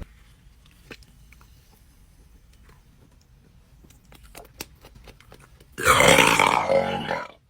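A person's long, loud burp, lasting about a second and a half and starting about six seconds in, brought up by gulped carbonated Sprite. Before it there are only faint small clicks.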